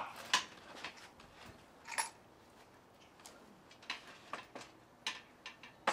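Irregular sharp clicks, about nine over several seconds, from one-handed quick-release bar clamps being ratcheted and adjusted on a glued timber post. The clamps are being tightened to press the warped wood inwards and close gaps in the glue joint.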